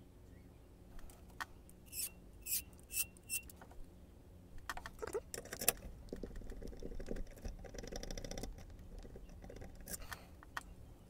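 A blank key being twisted and rocked back and forth in a pin-tumbler lock to press impression marks from the pins. It makes scattered small metallic clicks, a run of fast rattling in the middle, and a couple more clicks near the end.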